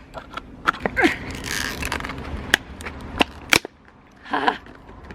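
A series of sharp clicks and clatters, with a short rustle, as a new doorbell and its packaging and parts are handled.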